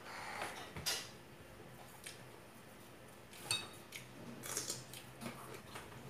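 Eating sounds: crunchy bites and chewing of a cucumber stick, with a few light clinks of cutlery against dishes. One clink, with a brief ring, comes about three and a half seconds in, just before a burst of crunching.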